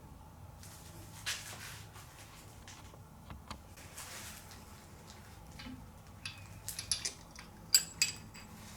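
Hand tools and small metal engine parts being handled: scattered light clicks and scrapes, then two sharp, ringing metal clinks near the end.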